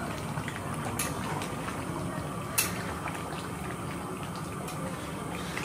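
Thick curry in a large kadai simmering on a gas burner: a steady bubbling rush, with the metal ladle clicking against the pan twice.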